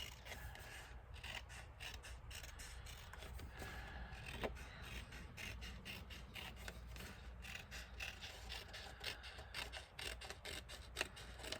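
Scissors cutting a long, narrow strip of cardstock: a run of short, uneven snips with paper rubbing and rustling between them.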